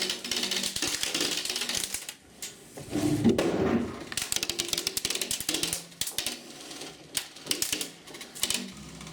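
Airsoft guns firing in rapid full-auto clatter: a long burst first, then shorter bursts with gaps between them.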